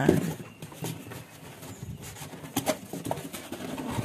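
Light knocks, taps and rustling from a 15-inch speaker driver being handled and turned over in the hands; the driver itself is not playing.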